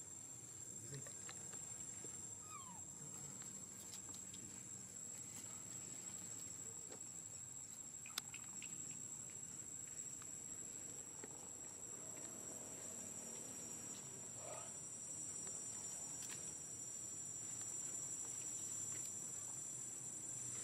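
Faint steady high-pitched insect drone, like a cricket chorus. A few faint short squeaks and scattered clicks sound over it, with one sharp click about eight seconds in.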